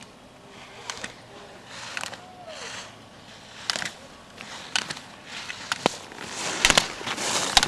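Skis scraping and hissing on hard-packed snow through short slalom turns, one burst with each turn and louder near the end as the skier comes close. Sharp knocks come about once a second.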